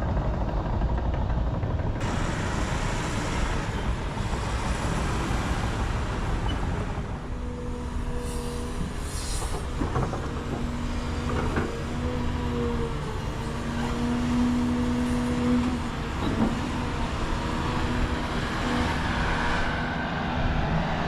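Heavy earthmoving equipment working: a big diesel engine runs under load, and from about a third of the way in a steady whine rises and falls in pitch as the load changes.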